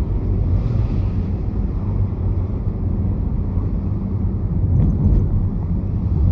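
Steady low rumble from a car, with two faint clicks about five seconds in.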